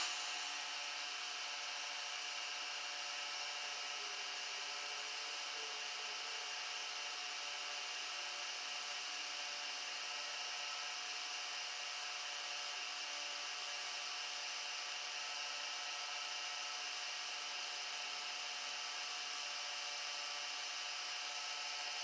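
Milling machine running steadily as an end mill cuts a small brass part and the sacrificial block beside it: an even hiss with several held tones that does not change throughout.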